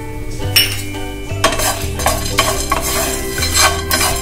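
Wooden spatula stirring and scraping dry spices (cumin, coriander seeds, peppercorns, cloves) around a nonstick pan while they dry-roast. The stirring starts about a second and a half in, in repeated scraping strokes of two or three a second.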